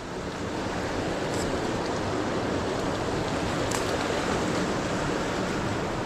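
Steady rush of the fast-flowing Seti River's water, an even noise with no breaks.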